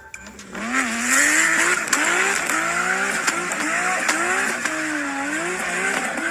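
Car engine revving up and down over and over during a burnout, with tyres squealing and spinning.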